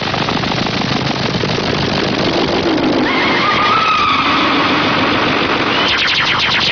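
Cartoon soundtrack sound effect: a loud, dense rattling buzz like a running motor. About three seconds in, gliding whistle-like tones join it, and a quick run of clicks comes near the end.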